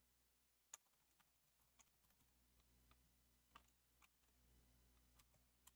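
Faint, irregular keystrokes on a computer keyboard, a dozen or so scattered clicks.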